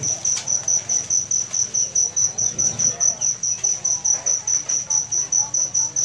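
High-pitched insect chirping, like a cricket, in an even pulse of about five chirps a second.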